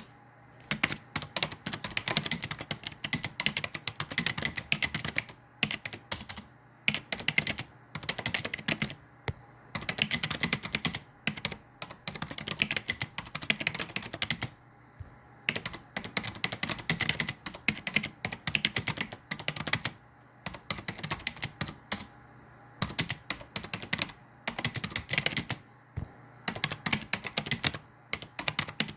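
Computer keyboard being typed on in bursts of rapid key clicks, each lasting a couple of seconds, with brief pauses between them.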